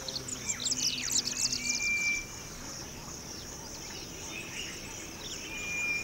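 Bush ambience of birds calling: rapid chirping and twittering in the first two seconds, and a few short, clear whistled notes, one near the end. A steady high insect drone runs underneath.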